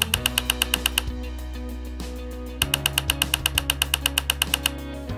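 Background music with sustained low notes, joined by two runs of rapid, evenly spaced clicks at about eight a second: one in the first second and a longer one starting about two and a half seconds in.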